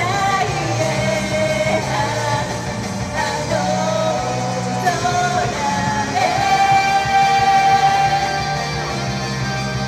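Idol group singing a rock-style pop song over its backing track, with a long held sung note about six to eight seconds in.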